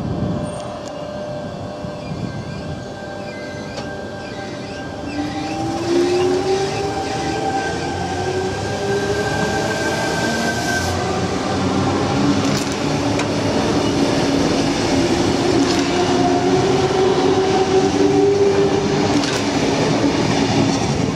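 Sydney Trains Tangara double-deck electric train pulling out and gathering speed, its traction equipment giving a whine of several tones that climb in pitch over the rumble of the wheels on the rails, getting louder toward the end.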